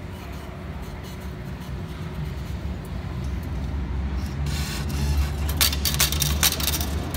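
A low rumble builds steadily louder. From about four and a half seconds in, the ticket machine dispenses its change: a run of sharp clicks and clinks of coins dropping into the output tray.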